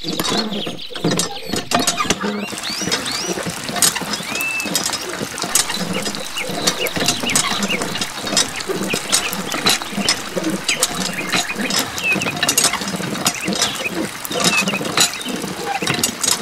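Miniature hand-operated water pump being worked: rapid small clicks and ticks with a few short squeaks from the mechanism, along with water trickling from its straw spout.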